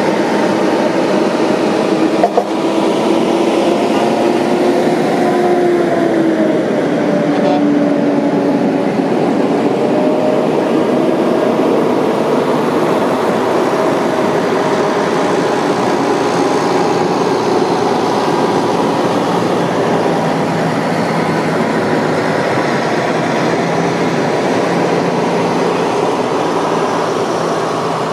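Fire trucks and other emergency vehicles passing in a procession with horns and sirens sounding over engine noise, in one loud continuous din. A sustained horn tone wavers and falls in pitch several seconds in as a vehicle goes by.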